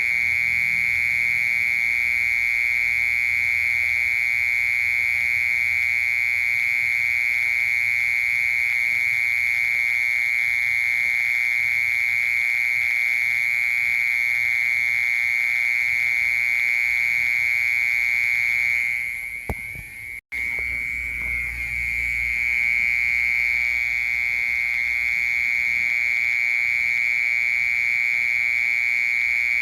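Cricket singing one continuous, steady high-pitched trill. It falters and cuts out for an instant about two-thirds of the way through, then resumes.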